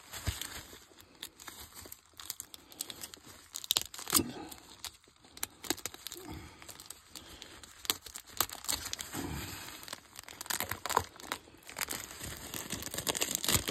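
Bubble wrap crinkling and rustling in irregular crackles as it is pulled open and handled by hand.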